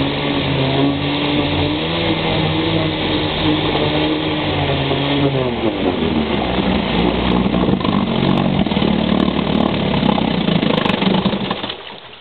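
1947 Firestone 7.5 hp twin-cylinder two-stroke outboard motor running in a test can of water. It runs steadily, drops in pitch about halfway through as it slows, runs on more roughly, and cuts off shortly before the end.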